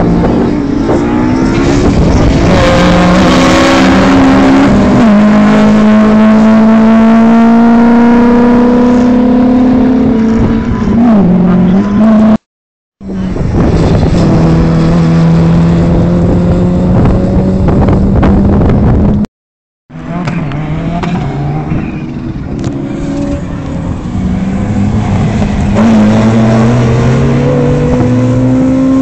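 Rally cars' engines driven hard, the pitch climbing through the gears and dipping between shifts, as one car after another runs the stage. The sound cuts out to silence twice, briefly, where the footage jumps to the next car.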